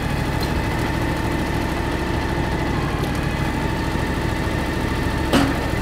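John Deere X738 garden tractor engine running steadily while the hydraulic dump cylinder tips the front shovel forward, with one short knock about five seconds in.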